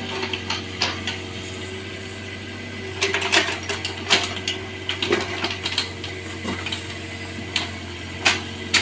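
Bobcat 322 mini excavator running steadily while working, with irregular sharp metallic clanks and knocks over the engine's constant hum.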